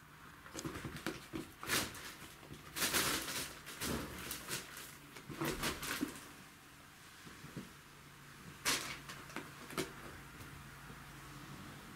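Two domestic shorthair cats play-fighting on carpet: scuffling, rustling and soft thumps as they grapple and brush against a plastic bag. The noise comes in several short bouts with quieter gaps and dies down near the end.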